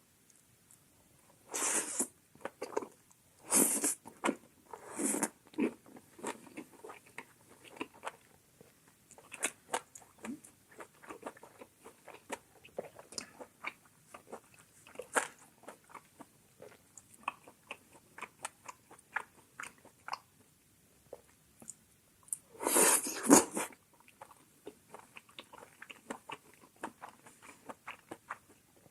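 Close-miked eating: steady wet chewing and biting with many small mouth clicks, broken by a few louder short bursts about 2, 4 and 5 seconds in and a longer, loudest one near the end.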